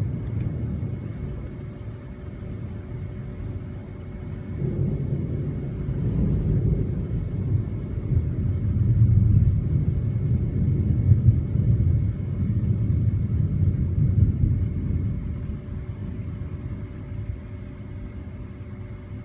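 Thunder rolling low in a long rumble. It swells a few seconds in, rolls on for about ten seconds, then fades.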